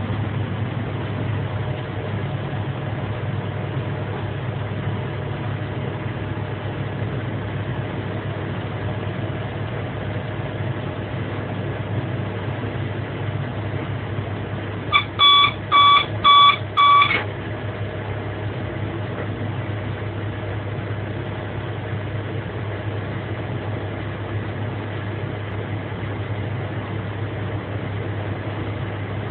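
Steady running noise and low hum in a Swiss SBB train's driver's cab, interrupted about halfway by four quick electronic beeps from a cab warning device.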